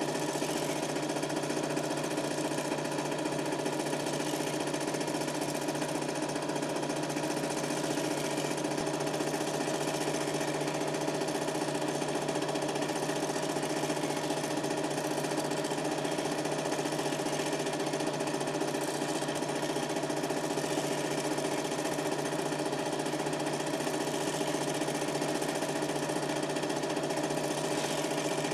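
Super 8 film projector running during the film's transfer: a steady mechanical whirr and rattle from its motor and film transport, unchanged throughout.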